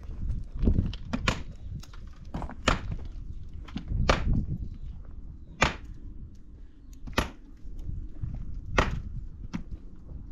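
A series of sharp knocks of hard objects striking, about one every second or two, over a low rumble.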